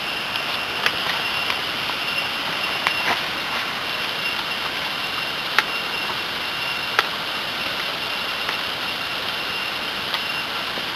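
Waterfall roaring steadily, an unbroken rush of falling water, with a few sharp clicks scattered through it.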